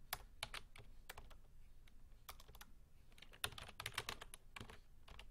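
Typing on a computer keyboard: irregular key clicks in short runs, with a pause of a second or two in the middle.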